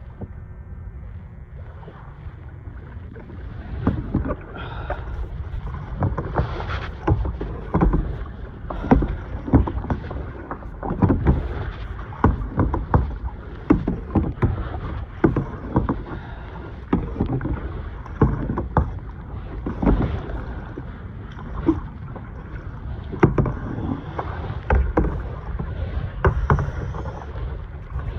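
Kayak paddling on the sea: the paddle blades splash into the water in a loose, uneven rhythm of about one or two strokes a second over low rumbling water and wind noise on the microphone. The splashes start about four seconds in.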